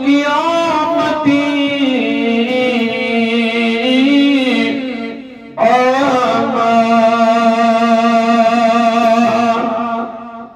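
A man's voice chanting in long, held melodic phrases, two drawn-out lines with a brief break about five and a half seconds in, fading near the end.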